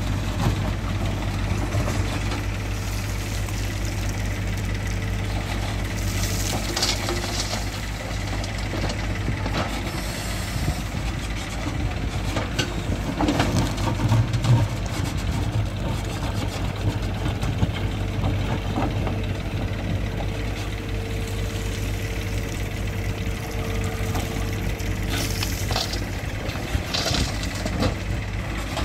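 Diesel engine of a Bull SuperSmart backhoe loader running steadily as the machine digs hard, stony soil. Its bucket scrapes and rattles through rock and dirt several times.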